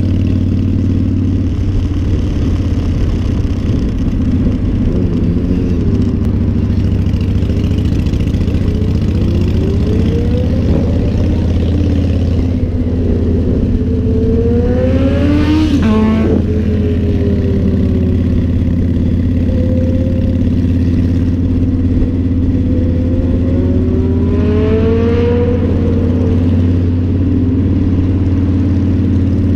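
Motorcycle engine running steadily under way, heard from the bike itself as a loud, even drone. Over it, another engine's note rises and falls in pitch several times, strongest about halfway through.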